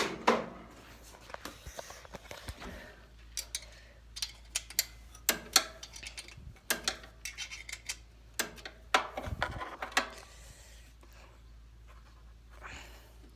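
Hand tools and metal parts clicking and clanking irregularly as bolts are worked loose on a lawnmower, a scatter of sharp knocks that thins out about ten seconds in.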